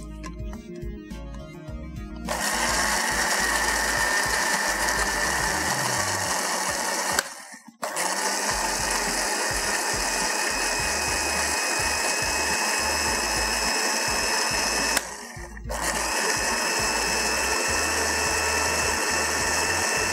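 Electric countertop blender starting about two seconds in and grinding a wet paste of coconut and whole spices with a steady whine. It runs in three stretches, cut off briefly about 7 and 15 seconds in.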